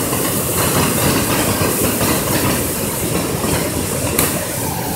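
Steady rushing of flowing river water, with a low rumble underneath and a single sharp click about four seconds in.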